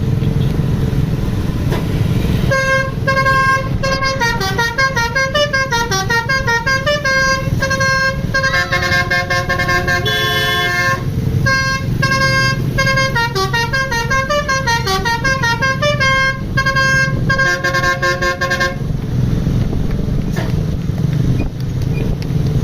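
Bus 'telolet' Basuri musical horn playing a tune of quick stepping notes, including two fast cascading runs, starting about two and a half seconds in and cutting off a few seconds before the end, over a steady engine rumble.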